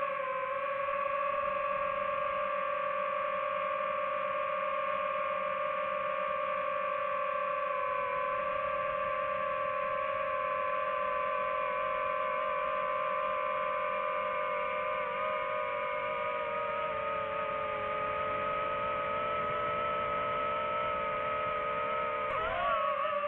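DJI FPV drone's motors and propellers whining in flight, a steady held pitch with overtones. About two-thirds of the way through it splits into several close tones as the motors change speed, and it wavers sharply near the end during a quick manoeuvre.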